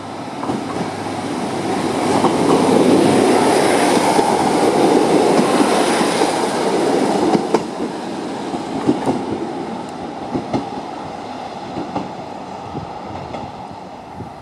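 Two coupled British Rail Class 153 diesel railcars passing close, their Cummins diesel engines and wheels on the rails loudest a few seconds in, then fading as the train runs away. As it goes, the wheels give a series of sharp clicks over the rail joints.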